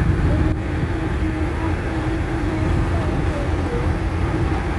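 Cabin noise inside a moving route minibus: a steady low rumble of engine and road, with a wavering whine running through it.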